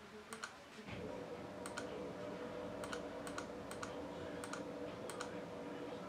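Computer mouse buttons clicking about a dozen times, several in quick pairs like double-clicks. A steady hum comes in about a second in.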